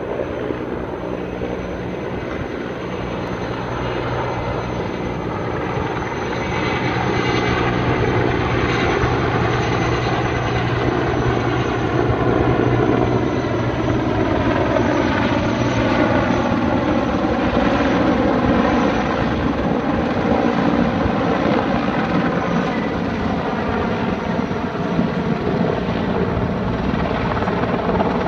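Erickson S-64 Air-Crane heavy-lift helicopter flying overhead with a load slung beneath it. The rotor and turbine engine noise grows louder over the first several seconds as it approaches, then holds steady, and its pitch slowly falls in the middle.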